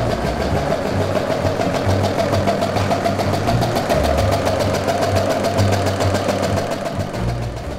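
Fortress generator-set engine running steadily, with an even rapid beat.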